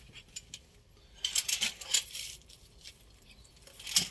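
Small metal pieces of work gear clinking and jingling as they are handled, in scattered clicks and two busier clusters: one about a second in and another near the end.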